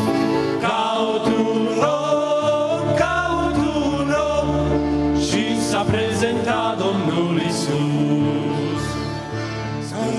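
A vocal group singing a Romanian Christian hymn in parts, with vibrato, over steady sustained low accompaniment notes.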